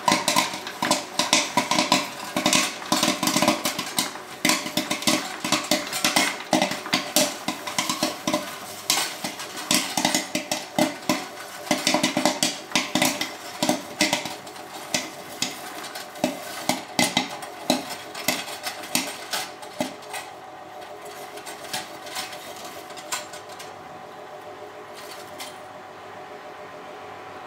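Corn kernels popping in the heated kettle of an Air-Flo tabletop kettle popcorn machine: rapid, dense pops that thin to a few scattered ones in the last third as the batch nears done, over the machine's steady hum.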